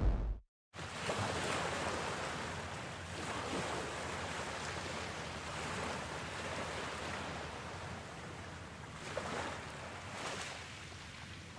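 A steady rushing wash of noise from a background ambience track, starting after a brief silence under a second in and swelling briefly twice near the end.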